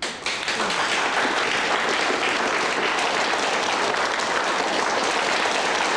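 A group of people applauding, breaking out all at once and keeping up steady clapping.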